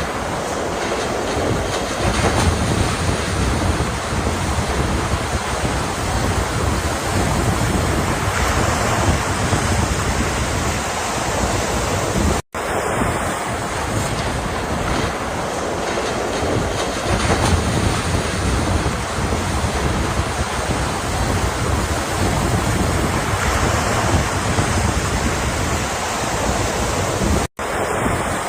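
Ocean surf: a steady rushing wash of waves with slow swells. The sound cuts out for an instant twice, about twelve seconds in and again near the end.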